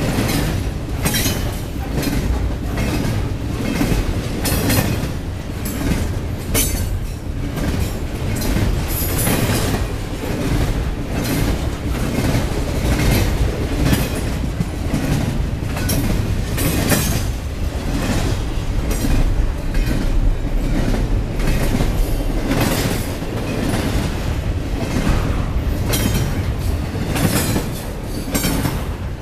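Double-stack intermodal container cars rolling past close by: a steady rumble with frequent sharp clacks of the wheels over the rail joints.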